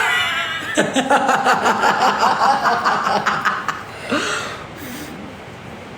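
Someone laughing in a quick run of short, pulsing bursts, then a brief voiced sound about four seconds in.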